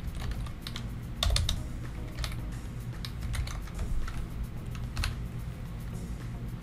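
Typing on a computer keyboard: irregular keystrokes with short pauses between them.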